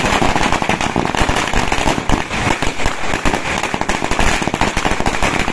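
Firecrackers going off in a rapid, continuous string of sharp bangs.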